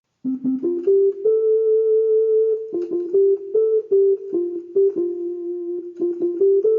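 Casio CTK-2400 electronic keyboard playing a simple single-note melody on one of its preset voices, with short notes and longer held ones. It starts about a quarter of a second in.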